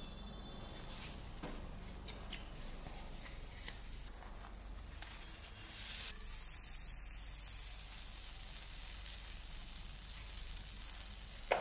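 Steady sizzling with faint crackles from a hot ribbed griddle, with a brief louder hiss about six seconds in and a sharp click near the end.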